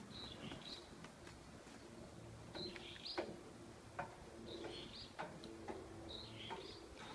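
A bird calling, a short two-part chirp repeated about every two seconds, with a few faint knocks in between.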